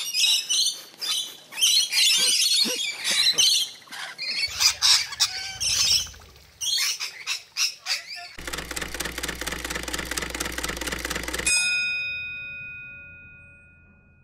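A flock of rainbow lorikeets screeching in rapid, overlapping bursts. About eight seconds in this gives way abruptly to a steady, dense buzzing sound that cuts off a few seconds later, leaving a few held tones that fade away.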